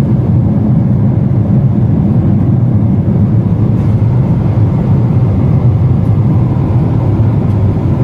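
Jet airliner cabin noise in cruise flight: a steady low roar of the engines and the air rushing past the fuselage.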